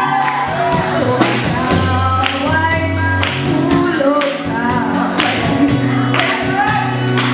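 A woman singing into a microphone, backed by a live band: electric bass holding long low notes and a drum kit keeping a steady beat.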